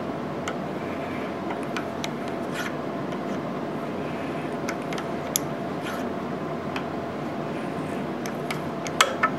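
Bottoming tap being turned slowly into a drilled hole in a lathe carriage, cutting threads: scattered light clicks and scraping over a steady hum, with two sharper clicks near the end.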